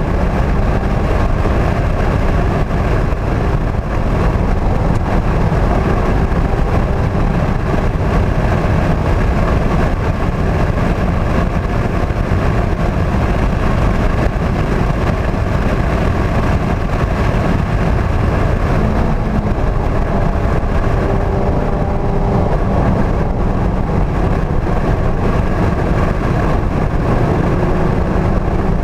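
2016 Mazda MX-5 Club's 2.0-litre four-cylinder engine running hard at track speed, heard from inside the cabin under heavy tyre and wind noise. It is steady and loud throughout, and the engine note rises a couple of times later on.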